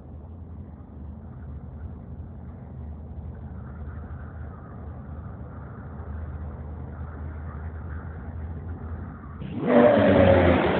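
Engine of a snowmobile converted to run on wheels, a low steady hum that grows slowly louder as it approaches, then turns much louder and fuller for the last second or so as it passes close by.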